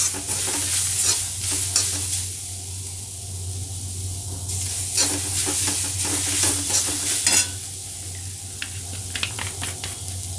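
Shredded vegetables (cabbage, carrot, capsicum, onion) sizzling in a metal kadhai while a metal spatula stirs and scrapes the pan in two spells, the second stopping about seven seconds in. The sizzle carries on after, with a few light crackles near the end.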